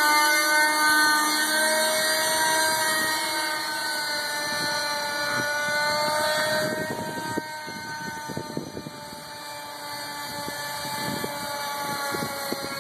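JR Venture 30 RC helicopter's O.S. .37 two-stroke nitro engine running at a high-pitched whine with its rotor, the pitch gliding slowly up and down. It grows quieter in the middle as the helicopter flies off, then louder again near the end as it comes back.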